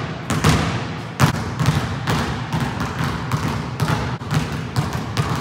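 Basketball being dribbled on a hard court: a quick run of bounces, about two to four a second.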